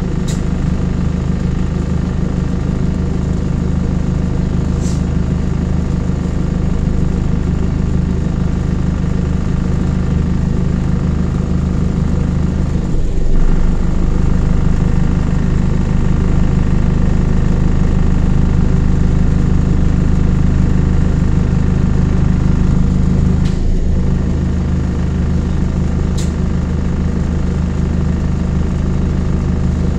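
Bus engine running steadily under way, heard from inside the passenger saloon: a loud, even drone. The drone breaks briefly about 13 seconds in and again near 24 seconds, with a few faint ticks and rattles.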